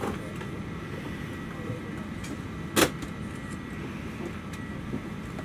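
Steady cabin noise aboard an Airbus A380 airliner, with one sharp knock about three seconds in.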